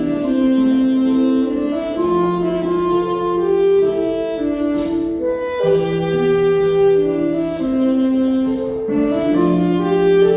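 Orchestra playing a slow ballad in held wind and brass chords that change every second or two, with light regular percussion ticks and two short hissing splashes, about five and nine seconds in.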